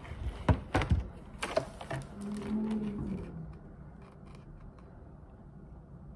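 Phone and plastic food containers handled on a table: a few sharp knocks and clatters in the first second and a half, then a short low hum.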